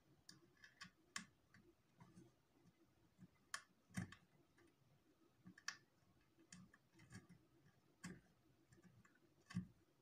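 Faint, irregular clicks and ticks of wire being twisted by hand onto spark plug terminals, about a dozen in all, the sharpest about four seconds in.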